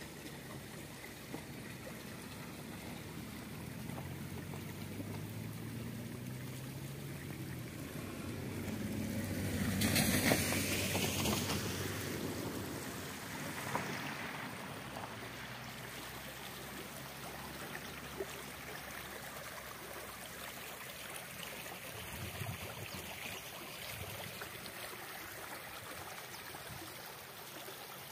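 Mountain stream rushing steadily. About ten seconds in, a louder rushing swell builds and fades away over a few seconds.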